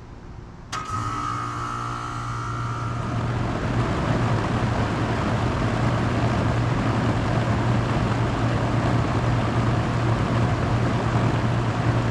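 1994 Janitrol 2-ton central air conditioner's outdoor unit starting up. About a second in, its reciprocating compressor kicks on suddenly with a steady low hum. Over the next couple of seconds the condenser fan's rushing air builds up, then the unit runs steadily.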